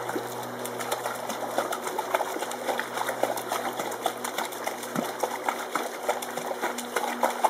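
A puppy splashing through the water of an inflatable paddling pool as it bites at bubbles: many quick splashes and drips, over a low mechanical hum that comes and goes.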